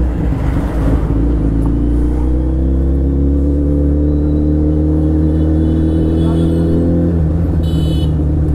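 Vehicle engine running under way, its pitch slowly rising as it picks up speed, then easing off about seven seconds in. A short high-pitched beep sounds near the end.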